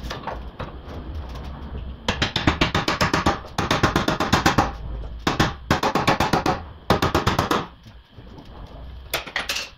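Ratchet wrench clicking fast in about six bursts of roughly a second each, the first starting about two seconds in, as a fastener is worked.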